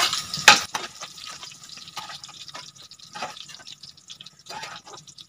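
Hot mustard oil crackling and sizzling in an aluminium kadhai after a batch of jackfruit pieces has been fried, with a ladle working in the pan. A sharp knock about half a second in, then the crackling thins out and grows quieter.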